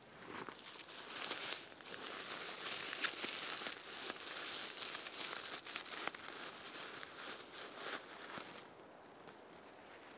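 Crinkling, rustling handling noise, as of dry, crisp material being crumpled and pulled apart by hand, with small crackly ticks through it. It dies down near the end.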